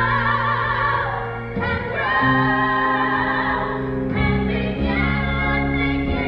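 Choir singing with instrumental accompaniment: held notes with vibrato, the chords moving on every second or so.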